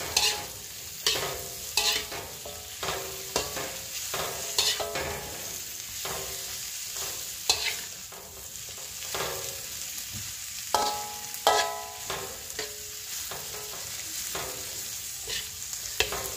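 Cabbage and carrot sizzling in a wok as a metal spatula stir-fries them, with repeated scrapes and clanks of the spatula against the pan. The sharpest, ringing clanks come about eleven seconds in.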